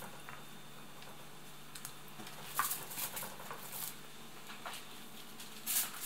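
Aluminium foil rustling and crinkling in a few short bursts as it is handled and folded around a fish, over a faint low steady hum.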